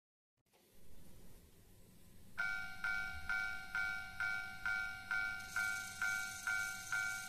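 Model railroad level-crossing warning bell sounding the Japanese railway-crossing ding, evenly repeated at about two strikes a second. It starts about two seconds in, after a faint hiss.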